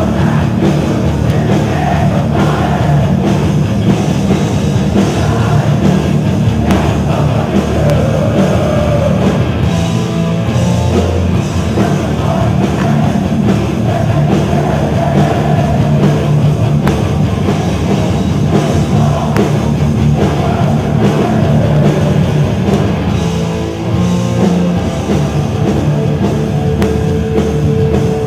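A hardcore punk band playing live, loud and continuous, with distorted guitars, drums and vocals through the PA, heard from inside the crowd.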